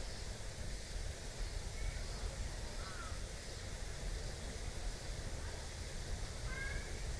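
Steady low outdoor rumble with a few faint, short bird calls: a brief descending chirp about three seconds in and a couple of short call strokes near the end.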